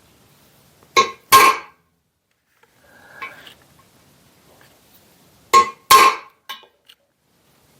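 A hammer striking a punch on a metal drill press head casting: two pairs of sharp metallic taps with a brief ring, the second pair about four and a half seconds after the first, then a couple of light clicks. The taps are punch marks that locate shallow holes to be drilled.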